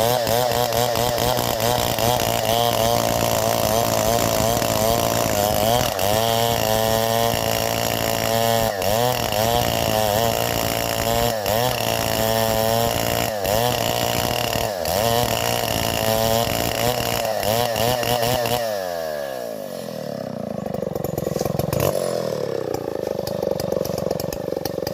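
Stihl 070 single-cylinder two-stroke chainsaw running at high revs, its pitch dipping briefly every couple of seconds. Near the end the revs fall away as the throttle is released, and the engine runs on at a lower, unsteady speed.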